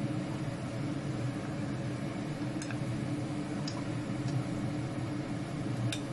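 A few light clicks of chopsticks against a steel bowl as blanched yu choy is lifted out of hot water, over a steady low hum.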